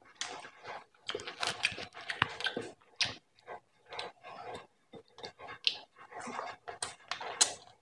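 Wet chewing and lip smacking of a mouthful of beef paya curry and roti, eaten by hand, heard as a run of irregular short smacks and clicks.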